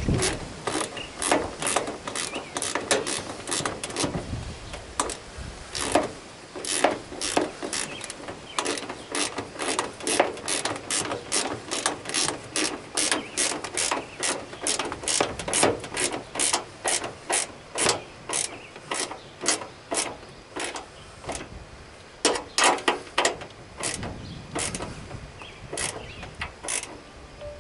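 Hand ratchet clicking as a 1/4 inch bolt and lock nut are tightened through a plastic mower-hood grill, a few clicks a second in runs with short pauses.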